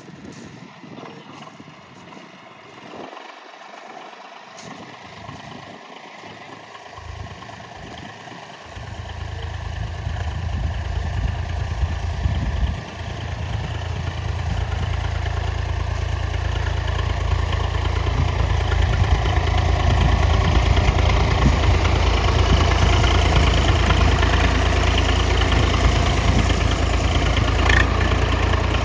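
Tractor engine running as it pulls a potato digger through the field. It becomes much louder about nine seconds in, with a deep rumble, and from there runs steadily loud.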